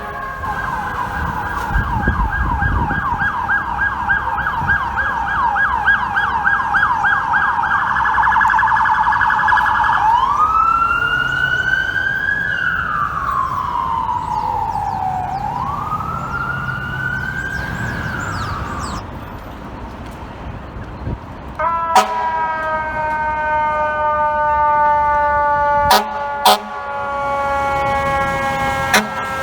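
Emergency-vehicle siren on a responding fire truck. A rapid yelp warble speeds up, then changes to a slow rising-and-falling wail that stops about two-thirds in. After a short lull, a steady chord of tones slowly sinking in pitch takes over, with a few sharp clicks.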